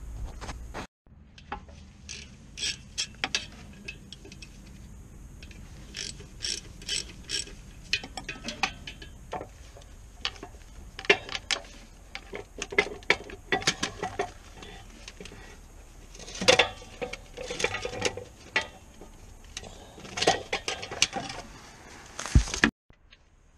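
Hand ratchet clicking in short runs, with metal clinks and knocks, as the clutch pressure plate bolts are undone. There is a clatter near the end as the pressure plate is pulled off the flywheel.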